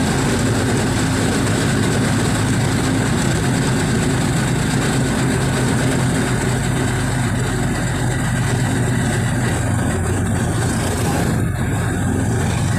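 Engine of the vehicle carrying the camera running steadily while it cruises along a paved road, with constant road and wind noise.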